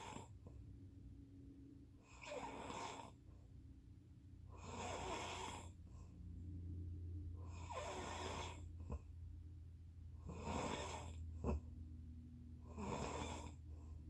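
A sleeping person snoring faintly, one noisy breath roughly every two and a half to three seconds, over a steady low hum.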